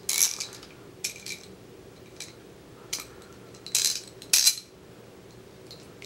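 Irregular sharp metallic clicks and clinks as a chrome hand ratchet is handled, the loudest pair coming about four seconds in.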